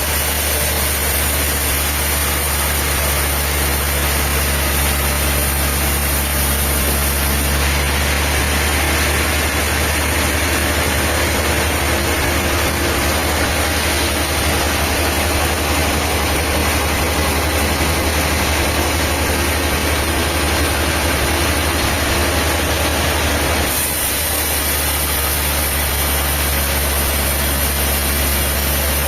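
A diesel engine running steadily with a deep hum. The higher part of the sound changes about eight seconds in and again near the end.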